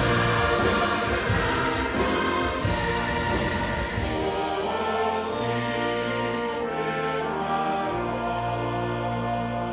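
Large massed choir singing with a symphony orchestra. Full sustained chords, with a few sharp accents in the first seconds, then long held chords over a low bass note from about five seconds in.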